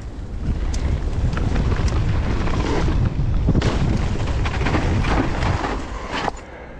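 Nukeproof Mega mountain bike ridden down a dirt trail: tyre rumble and rattles with wind buffeting the microphone, building up about half a second in and easing off near the end.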